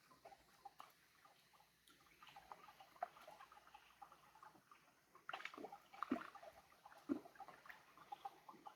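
Eurasian otters moving in water: faint splashing, dripping and gurgling with many small scattered clicks, and a few louder splashes about five to seven seconds in.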